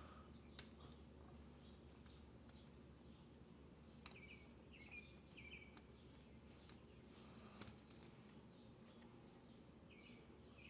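Near silence with faint bird chirps, short repeated calls every second or so, over a faint steady high-pitched hiss and a few light clicks.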